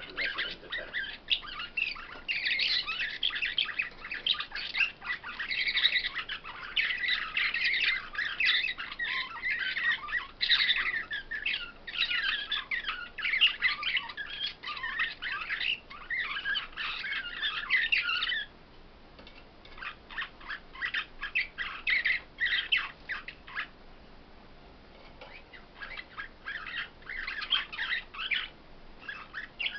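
Caged songbirds singing a rapid, chirpy twittering song. It runs almost without pause for the first two-thirds, then thins out to scattered phrases with a short lull before picking up again near the end.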